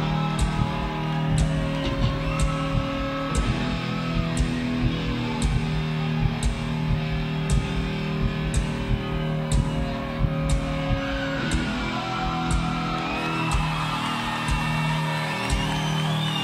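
Rock band playing live: an electric guitar lead line with bending notes over held low chords, with a drum or cymbal strike about once a second.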